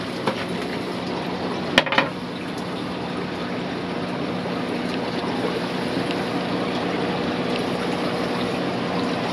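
Steady trickle and splash of running aquarium water with a low pump hum underneath; two light knocks about two seconds in.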